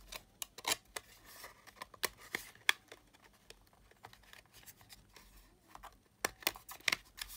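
Small clicks and light scraping as the metal back cover of a Sony WM-EX900 cassette Walkman is fitted and pressed onto its frame, with a quick cluster of sharper clicks near the end.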